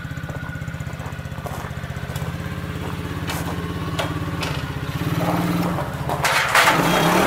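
Coolster 125cc ATV's single-cylinder engine running at low revs, picking up a little about five seconds in as the quad pulls away. Near the end a burst of harsh, crunching noise rises over the engine.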